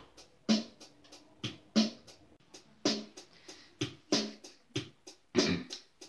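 A simple hip-hop beat from a portable electronic keyboard: a steady pattern of short drum hits, about two a second, with a stronger hit roughly every second.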